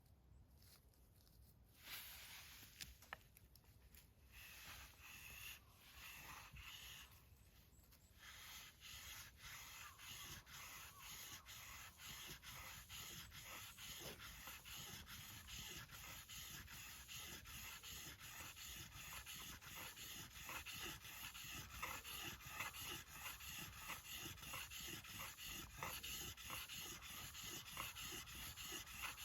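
Shiba Inu panting faintly in a steady, quick rhythm that grows slightly louder over the stretch, with a few scattered rubbing sounds before it settles in.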